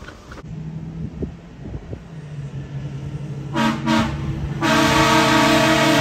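Train horns on a lifted Ford F450 sounding: a short blast about three and a half seconds in, then a loud, long held blast from about four and a half seconds. Before the horns, the approaching truck's engine runs steadily.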